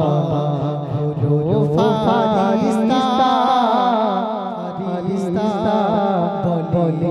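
A man singing an Islamic gojol (naat) solo, with long held notes that waver and turn in ornaments.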